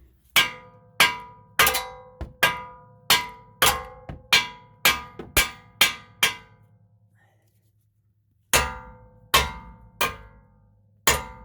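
Steel hammer striking the steering knuckle to break the old outer tie rod end's taper loose: a run of about a dozen ringing metal-on-metal blows, about two a second, a pause of two seconds, then five more.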